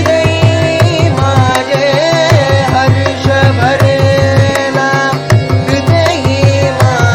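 Devotional bhajan: a voice singing a Marathi abhang in winding, ornamented phrases over sustained harmonium chords, with a steady mridangam beat from a rhythm app's recorded loop.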